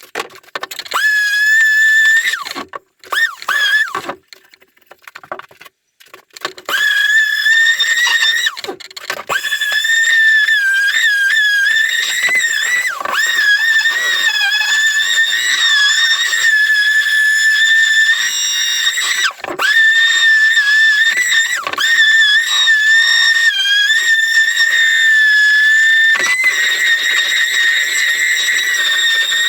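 Handheld electric power tool motor whining at a high steady pitch, switched off and back on several times; the pitch sags and recovers as it spins down, starts up and takes load against the wood.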